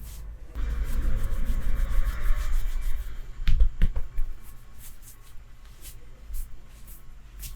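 Hands rubbing over skin in a massage for a few seconds, then two sharp clicks in quick succession, followed by lighter scattered clicks.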